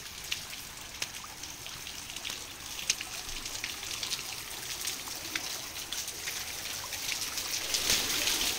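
Shallow stream water trickling over the concrete floor of a box culvert, with scattered small splashes and drips, growing louder near the end.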